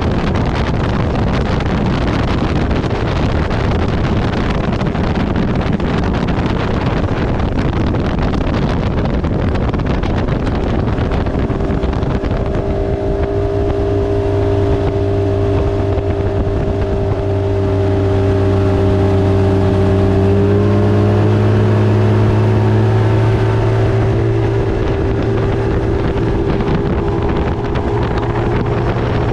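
Motorboat engine running at steady speed with wind buffeting the microphone; the engine's steady hum stands out from about twelve seconds in and swells a little past the middle.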